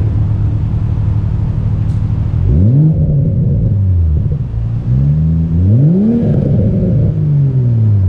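GR Supra's B58 turbocharged inline-six idling through a MADE Motorsports single-exit titanium exhaust, with the original catted downpipe still fitted, then revved twice, the second rev climbing higher in two steps before falling back to idle. Deep and loud.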